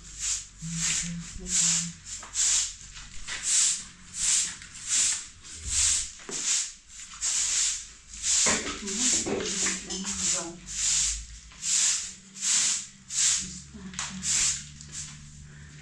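Short handheld straw broom sweeping a bare concrete floor in quick, regular strokes, about two swishes a second.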